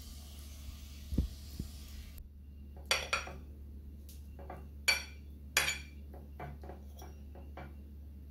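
A metal fork clinking and scraping against a ceramic dinner plate: a series of sharp clinks, the loudest about three, five and five-and-a-half seconds in, with lighter taps between, over a low steady hum.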